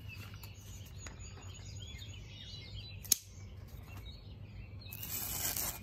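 A single sharp click about three seconds in as the blade of a Cold Steel Raja 3 folding knife is swung open and locks. Newspaper rustles near the end as the edge is set against it, with faint bird chirps in the background.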